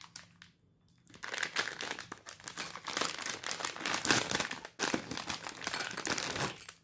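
Clear plastic packaging bag crinkling as hands handle it. The crinkling starts about a second in and keeps on, irregular, until just before the end.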